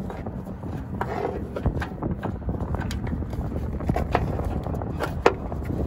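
Scattered light clicks and taps of a hand tool and metal parts as an air-fuel ratio (oxygen) sensor is worked loose, over a steady low background rumble, with one sharper click about five seconds in.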